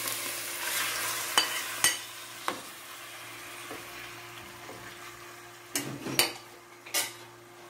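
Diced raw chicken breast sizzling in hot oil, the sizzle dying down after the first seconds. A spatula stirs the pieces and knocks sharply against the pan several times.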